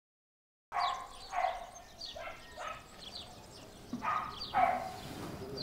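Silence, then from just under a second in a run of short animal calls, several yelps or barks with brief high chirps among them, the loudest about 1.5 and 4.5 seconds in.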